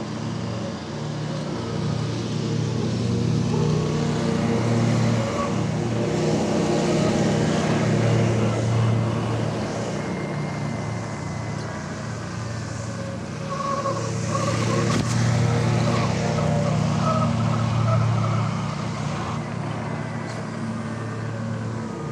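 Electric dirt bike ridden on pavement: wind rushing over the microphone with tyre noise and a faint motor whine rising and falling with speed. It grows louder twice, as the bike speeds up.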